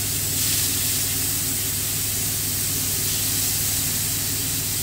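Pork fillets sizzling in a hot frying pan, over the steady hum and rushing air of a kitchen extractor fan.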